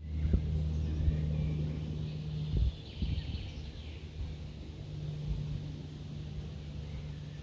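A steady low mechanical hum over a low rumble.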